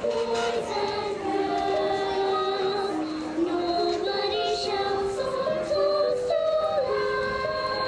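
Children's choir singing a song, with a girl's voice carried by a microphone; held notes step up and down in a melody.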